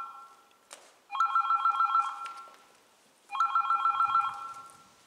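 A telephone ringing with a fast electronic trill: two rings of about a second each, roughly two seconds apart, after the fading end of an earlier ring.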